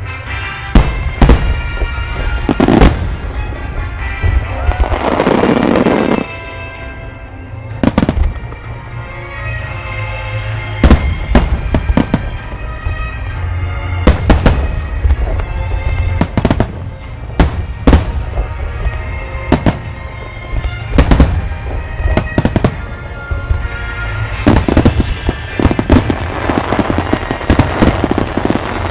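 Fireworks display: aerial shells bursting in many sharp bangs over music. A longer crackling hiss swells up about five seconds in and again near the end.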